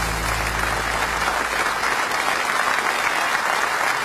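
Audience applauding at the end of a song, while the last low notes of the final chord die away in the first second or two.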